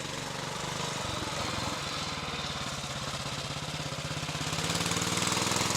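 Royal Enfield C.O motorcycle's single-cylinder engine running with an even, rapid beat, getting louder toward the end.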